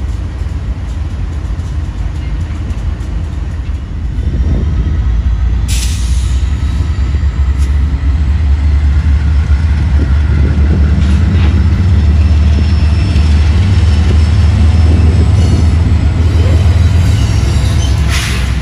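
Train running past, a steady heavy low rumble that grows louder about four seconds in, with faint high wheel squeal and a brief sharp rattle about six seconds in and again near the end.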